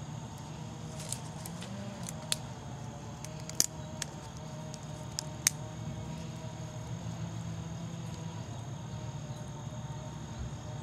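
A few sharp crackles and pops, about six in the first half, from a stick heating up over hot embers in a Bushbox XL wood-burning stove until it catches, over a steady low background hum.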